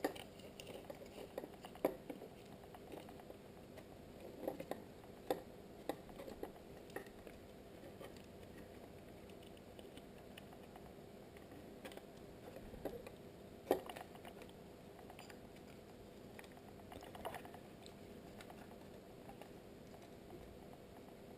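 Faint, scattered clicks and taps of small plastic parts of an IP camera being handled and fitted together, with a sharper click about fourteen seconds in.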